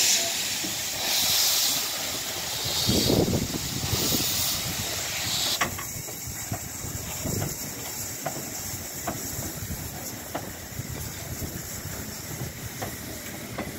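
Harz narrow-gauge class 99.23–24 2-10-2T steam locomotive starting away, loud hiss of steam venting from its open cylinder drain cocks in surges. The hiss cuts off sharply about five and a half seconds in, leaving a string of sharp clicks about once a second as the train rolls past.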